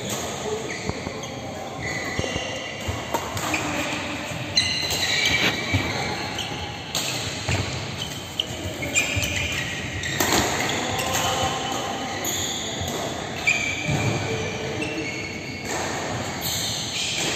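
Badminton doubles rally in a large echoing hall: sharp racket strikes on the shuttlecock every few seconds, with short high squeaks of shoes on the synthetic court mat and footsteps between them.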